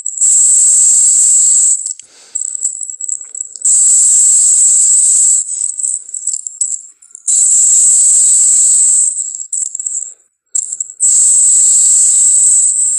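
Made-up dinosaur creature sound effect for the Indoraptor: four loud, high-pitched hissing rattles, each about two seconds long, with quieter, scrappier sounds between them.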